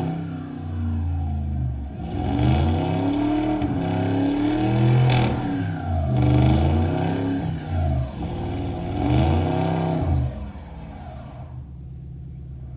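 A vehicle engine revving up and down again and again, its pitch rising and falling every second or two, settling to a quieter steady run near the end.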